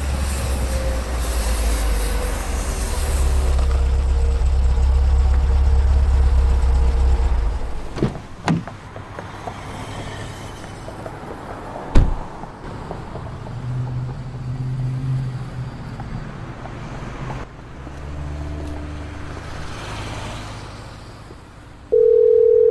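Highway traffic with lorries and cars passing, a heavy low rumble for the first several seconds before thinning to lighter traffic hum. A car door shuts with a sharp bang about twelve seconds in, after a couple of smaller clicks a few seconds earlier. Near the end a phone gives a single steady tone lasting about a second and a half.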